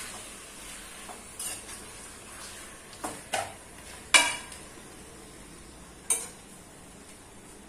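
Chicken being stirred into frying onions in an aluminium pressure cooker: a steady low sizzle, with the stirring utensil scraping and knocking against the pot about five times, loudest about four seconds in.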